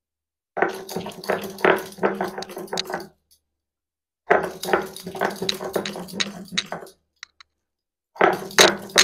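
A stone roller being worked back and forth over a grooved stone grinding slab (shil-nora), crushing fried vegetables and shrimp into a paste. It comes in three bouts of rough crunching and scraping, with short pauses between them.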